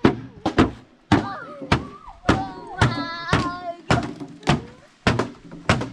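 A steady run of sharp knocks, about two a second, as of something being struck over and over, with a high voice sounding between them near the middle.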